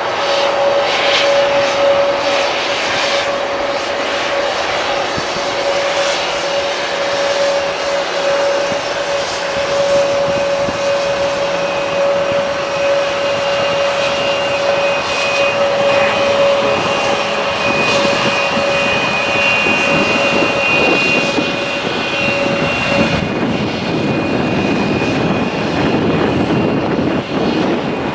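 Jet airliner engines running at an airport, a steady rushing noise with a constant whine that stops about 23 seconds in.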